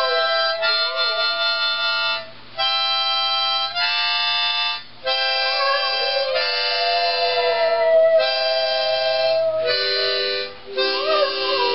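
Harmonica playing long held chords with a few short breaks, while a dog howls along in a wavering pitch that slides up and down over the chords.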